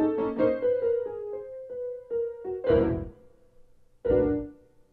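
Piano-like keyboard music: a run of single notes fading over a held note, then two heavier struck chords with a low thump, about three and four seconds in, with a brief near-silent gap between them.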